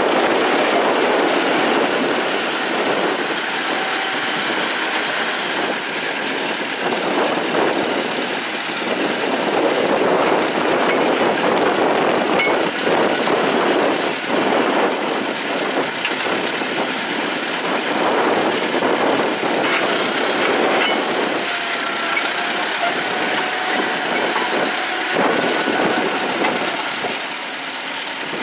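Caterpillar D7 crawler bulldozer working under load pulling a plow: the diesel engine running steadily with the steel tracks clattering, and a steady high whine over it.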